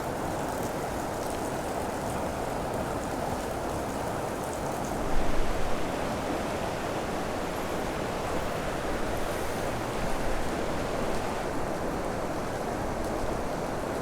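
Canyon stream running: a steady rush of flowing water. About five seconds in comes a brief low rumble, and a smaller one about ten seconds in.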